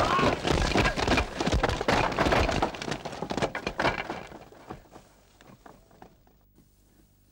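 A straw-thatched wooden field hut being pulled down: poles cracking and snapping, wood and thatch crashing to the ground in a dense clatter that dies away about five seconds in.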